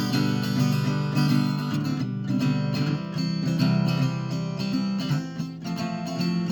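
Guitar strumming chords in quick repeated strokes, changing chord about five and a half seconds in.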